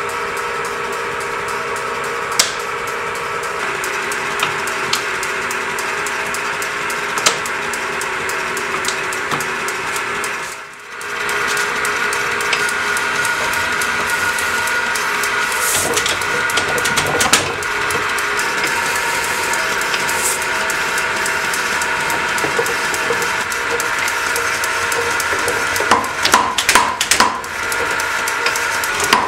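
A 25 kg ABNO leaf-spring power hammer runs steadily, its belt drive and motor giving a steady whine and hiss with occasional single clicks. Near the end, a quick irregular run of hammer blows strikes the anvil as the treadle is pressed.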